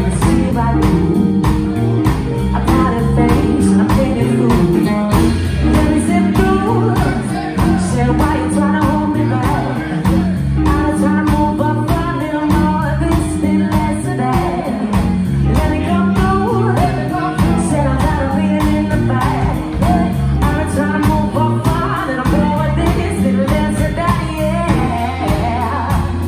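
Live band playing: women singing into microphones over electric guitar, electric bass and a drum kit, with a steady drum beat.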